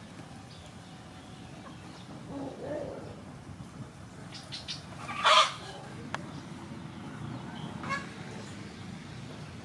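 Fowl clucking, with one loud short call about five seconds in and a few fainter calls around it.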